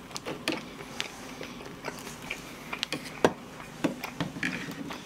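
A person chewing a mouthful of toast: scattered wet mouth clicks and smacks, the sharpest a little over three seconds in.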